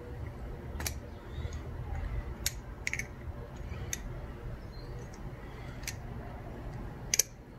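Titanium-handled butterfly knife (balisong) being flipped: about six sharp metallic clicks at irregular intervals as the handles and blade swing open and shut against each other, with a low steady background rumble.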